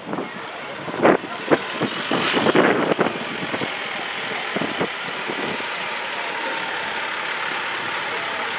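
Fire engine running steadily as it drives through a parking lot, with no siren. A few short knocks and nearby voices in the first three seconds.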